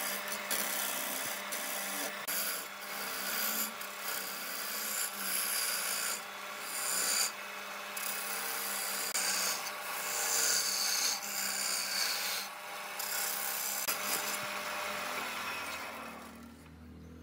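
Sandpaper pressed by hand against a wooden vase blank spinning on a wood lathe: a scratchy rubbing hiss that swells and eases again and again over the lathe's steady hum. The rubbing dies away near the end.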